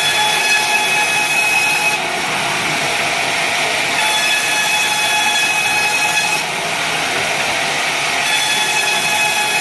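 Sawmill blade cutting wadang timber: a steady, loud sawing noise with a high ringing whine that comes in for about two seconds at a time, three times.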